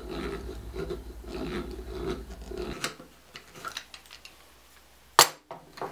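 Hand-cranked eggbeater drill boring into a cherry handle blank: the gears whir and the bit grinds through the wood in a steady rhythm, stopping about three seconds in. This is followed by a few light ticks and a single sharp knock near the end.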